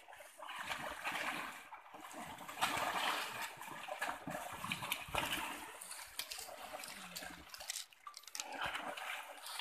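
Komodo dragons feeding on a deer: irregular wet tearing and squelching, with short sharp crackles.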